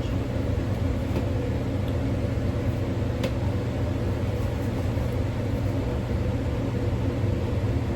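A steady low machine hum, with a faint click about three seconds in.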